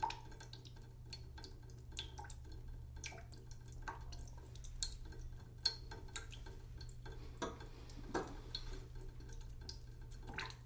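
Water dripping slowly into a cooking pot in a kitchen sink: irregular drops, a few a second, some ringing briefly, over a steady low hum.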